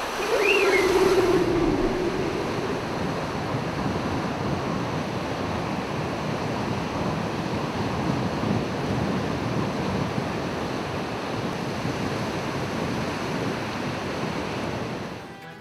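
Ocean surf washing steadily, with a short falling tone in the first two seconds; the sound fades out just before the end.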